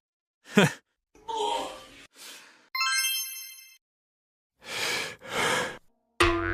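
A string of short cartoon sound effects: a quick falling swoop, a breathy sigh, a bright steady tone lasting about a second, two breathy puffs, then a low buzzing tone starting near the end.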